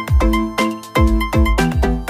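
Background music with a steady kick-drum beat, about two beats a second, under held chords.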